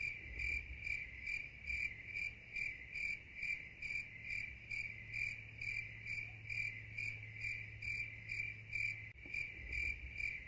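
Crickets chirping in an even, steady rhythm, about two short high chirps a second.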